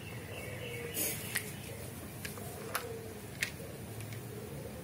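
A baby monkey handling hard plastic toys, making about six light, sharp clicks and knocks spread over a few seconds.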